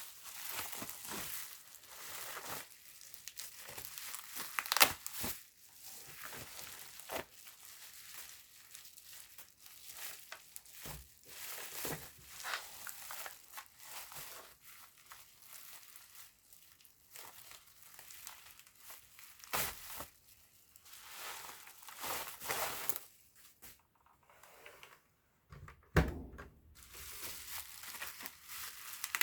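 Packaging being handled during an unboxing: crinkling and rustling in irregular bursts, with a few sharper knocks, the loudest about five seconds in and another near the end.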